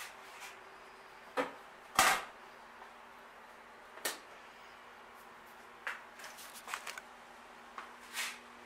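A string of short sharp clicks and knocks at uneven intervals, the loudest about two seconds in and a small cluster of them about six to seven seconds in, over a faint steady hum.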